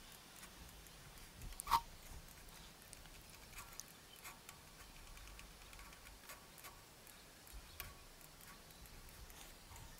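Faint, scattered clicks of a computer mouse, with one louder click a little under two seconds in.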